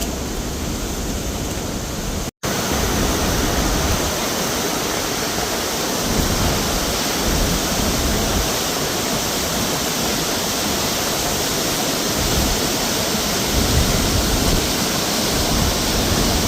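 Steady rush of Vernal Fall's falling water, a continuous even noise. It cuts out for an instant about two seconds in.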